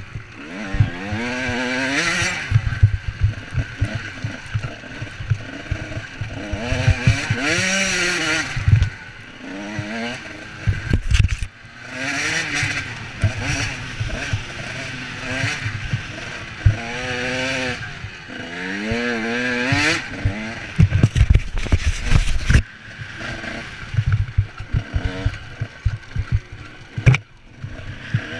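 Dirt bike engine revving as it is ridden hard over a rough dirt trail: the engine note climbs, then drops again many times as the rider works the throttle and gears. Clatter and knocks from the bike bouncing over the rocky ground come through.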